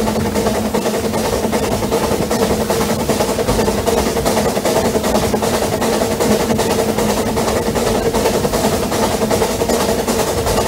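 Narrow-gauge railway carriage running along the line: a loud, continuous fast rattle and clatter of wheels and coachwork, with a steady hum underneath.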